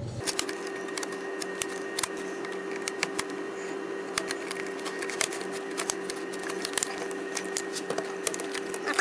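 Plastic trim panels of a Dell XPS laptop being pried and unclipped by hand: a run of small, irregular clicks and snaps, over a steady hum.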